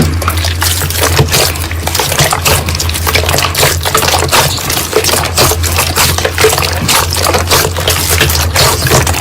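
Slime being worked by hand, giving a dense, continuous run of wet crackling and clicking pops over a steady low hum.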